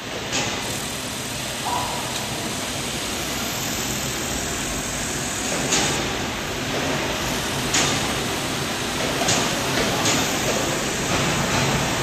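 Steady machinery noise in a robot welding workshop, broken by a few short metallic clanks.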